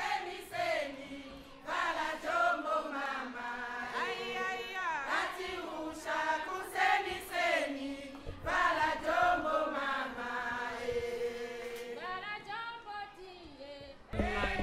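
A choir singing, several voices together, as background music.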